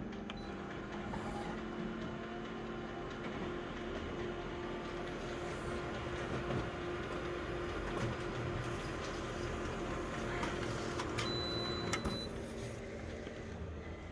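Flatbed scanner making a scan: a steady motor hum with a whirring carriage for about twelve seconds, stopping near the end.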